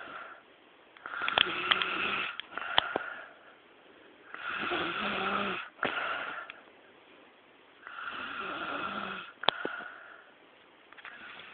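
A woman snoring in her sleep: three long snores about three and a half seconds apart, with a few sharp clicks in among them.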